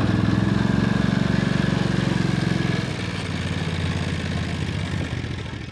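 Engine of a John Deere Gator utility vehicle running as it drives off across rough ground. It makes a steady drone with a rapid firing pulse that drops a little in level about halfway through as the vehicle pulls away.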